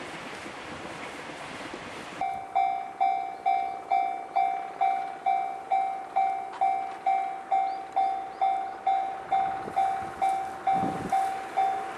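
Wind noise, then about two seconds in a railway level-crossing alarm starts, ringing one clear clanging tone about twice a second. The alarm signals a train approaching the crossing.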